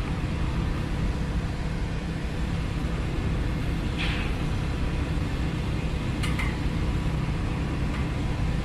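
A steady low rumble of a running machine or vehicle, cutting in suddenly, with two faint brief higher sounds about four and six seconds in.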